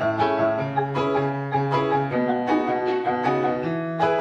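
Instrumental background music with a steady run of pitched keyboard-like notes.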